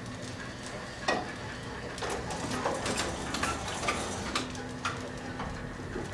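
1954 Otis elevator machinery making irregular clicks and knocks over a faint steady hum.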